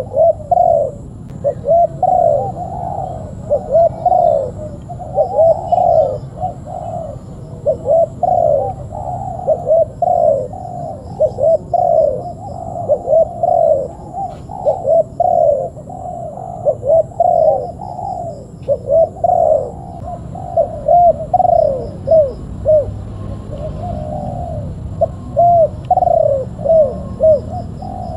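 Spotted doves cooing: a steady run of repeated arched coo phrases, one close after another, with short pauses between phrases.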